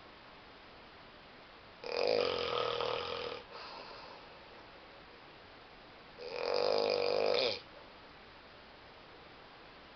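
A person snoring in their sleep: two long snores about four seconds apart, each lasting a second or two.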